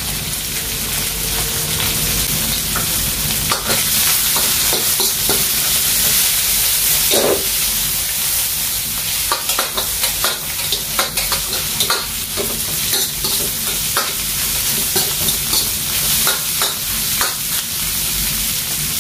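Sliced mushrooms and onions sizzling in hot oil in a wok, stir-fried with a metal spatula that scrapes and clinks against the pan at irregular moments.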